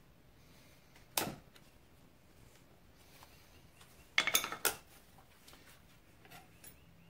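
Metal hand tools clinking against metal parts while a retaining spring clip is worked toward its groove: one sharp clink about a second in, a quick cluster of clinks and clatter a little after four seconds, and a few faint taps near the end.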